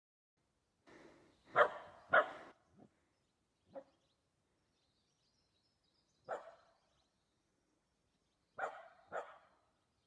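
A dog barking in short, separate barks: a loud pair a couple of seconds in, a few fainter single barks, then another pair near the end.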